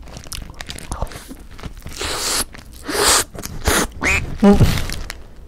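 Biting into and chewing a fried black squid burger close to the microphone, with several short crunchy bites through the middle. Near the end come a couple of brief nasal, voiced sounds.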